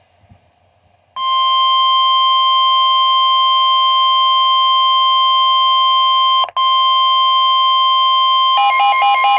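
Emergency alert attention tone: a loud, steady electronic tone near 1 kHz starts about a second in and cuts out for an instant past the middle. Near the end a fast-pulsing alarm tone joins it.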